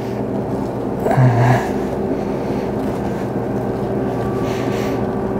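A hand-twisted pineapple corer-slicer being screwed down into a pineapple, its blade cutting through the fruit, under a steady low hum. A short low-pitched sound comes about a second in.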